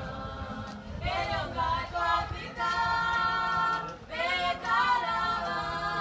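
Church choir singing unaccompanied in harmony, with long held chords; the singing grows louder about a second in.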